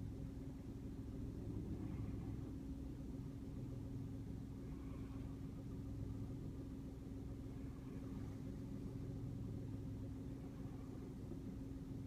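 A car engine idling, a steady low hum with rumble, heard from inside the vehicle.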